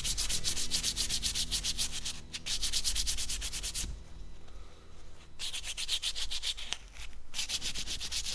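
Sandpaper scrubbed by hand over the crown of a forged aluminium Harley-Davidson piston, cleaning off deposits. It makes a rapid, dry scratching in quick strokes, with short pauses about two seconds in, around four to five seconds, and near seven seconds.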